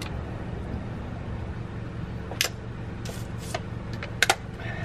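Red Bull cans being shotgunned: a sharp crack of a can tab about halfway through, short fizzy hisses, and two quick sharp clicks near the end, over a steady low background rumble.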